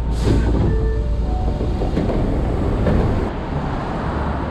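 Osaka Metro Sakaisuji Line subway car running, a steady low rumble heard from inside the carriage. The rumble drops away about three seconds in.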